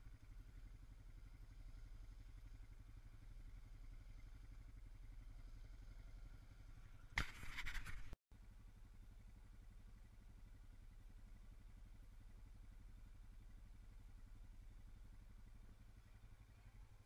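Faint, steady low engine sound of a distant ATV running on the trail, with a brief louder burst of noise about seven seconds in.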